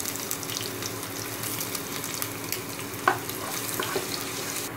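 Chopped garlic sizzling and crackling in hot soybean oil in a pan, with one sharp knock about three seconds in and a faint steady hum underneath.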